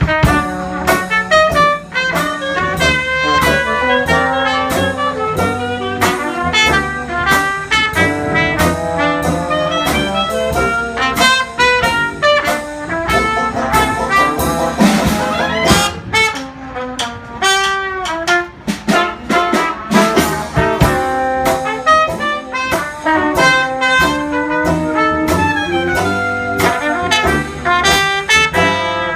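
A live band playing a jazz tune, with brass leading the melody over a steady beat.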